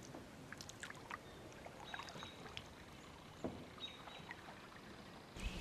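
Quiet kayak paddling: faint drips and small splashes of water from the paddle blade, in scattered soft ticks.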